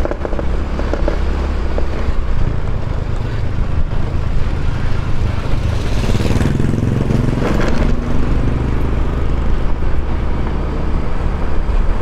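Automatic scooter riding along at low speed: a steady engine and wind rumble on the microphone. About six seconds in another motorcycle passes close by, its engine note rising and then falling as it goes past.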